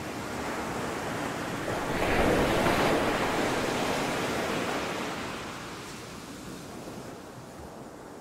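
Waves washing in a rushing noise that swells about two seconds in and then slowly fades out.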